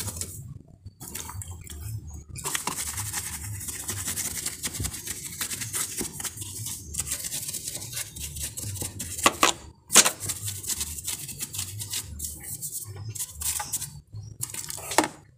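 A brush scrubbing soap-covered parts of a car engine bay: rapid, scratchy bristle strokes, with a few sharper knocks about nine to ten seconds in.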